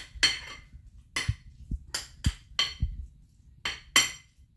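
A kitchen utensil striking a dish or pot: about nine sharp clinks at uneven spacing, each with a short ring.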